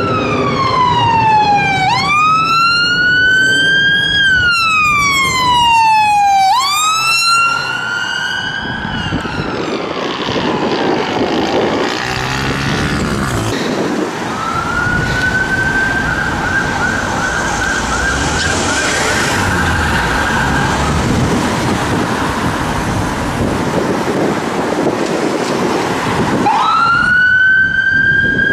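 Police car siren in a slow wail, sweeping down and up twice, then fading away. An ambulance siren follows, rising and then switching to a fast yelp; it drops back and returns louder near the end.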